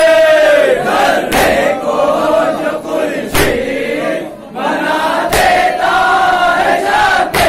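Group of men chanting a salaam, a Shia mourning elegy in Urdu, together in long held, wavering notes. A sharp beat lands about every two seconds, keeping time with the chant.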